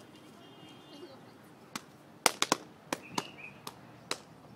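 About eight sharp slaps in an uneven sequence starting a little under two seconds in: men in a line snapping their arms down against their sides one after another in a step-style salute.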